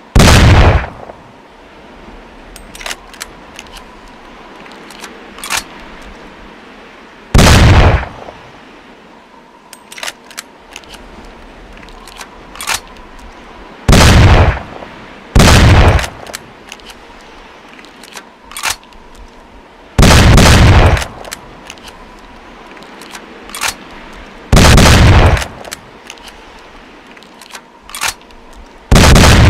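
Sawed-off shotgun firing seven single blasts a few seconds apart, two of them about a second and a half apart. Each shot rings out briefly, with small metallic clicks and rattles of handling between shots.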